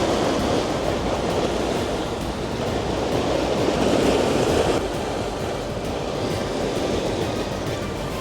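Rough sea rushing and washing along a sailboat's hull, swelling to a peak about four seconds in and then easing, with some wind on the microphone.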